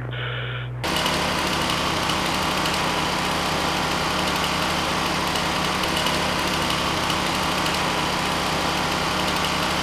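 A fire truck engine, an ETQ 2250-watt portable generator and a chainsaw running together. They make a steady mixed engine noise that starts abruptly about a second in and holds level.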